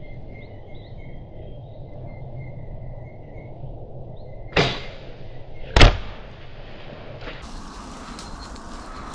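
Two compound bow shots about a second apart: a first string release, then a louder, closer release of the Bear Cruzer G2 compound bow that carries the camera.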